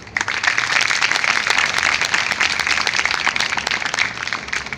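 An audience applauding: dense clapping that starts suddenly and dies away near the end.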